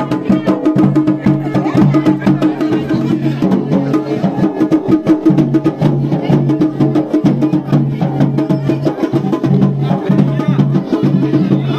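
Dance music with a fast, steady percussion beat over a repeating low line.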